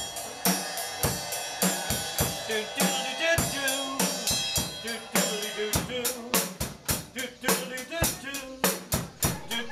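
Live drumming: a drum kit with cymbals and hand drums played together in a steady beat, the strikes coming quicker in the second half.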